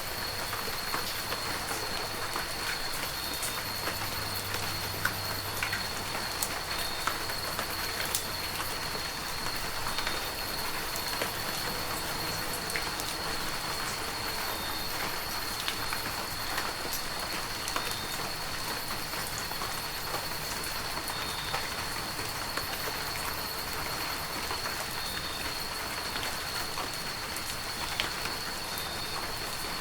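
Heavy rain falling steadily, with many sharp, separate drop impacts over the constant hiss. A thin, steady high-pitched tone runs underneath the whole time.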